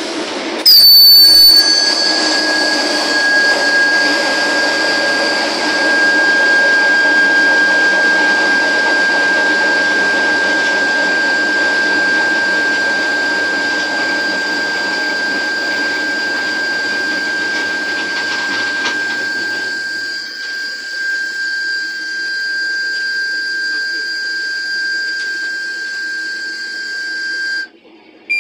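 Compressed air rushing out of the train's brake pipe through the driver's brake valve in an emergency brake application: a sudden loud blast about a second in, then a steady hiss with a whistling tone, cutting off suddenly near the end. A low rumble of the running train underneath stops about twenty seconds in.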